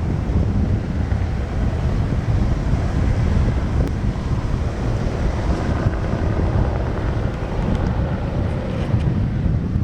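Wind buffeting the microphone: a loud, steady low rumble with a hissy haze above it.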